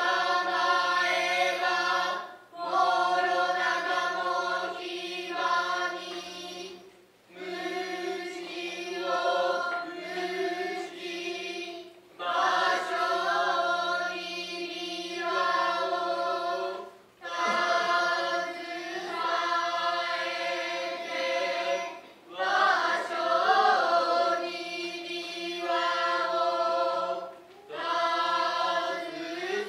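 Children's chorus chanting Noh utai in unison as the jiutai accompaniment to a shimai dance. The chant comes in long held phrases broken by short breath pauses about every five seconds.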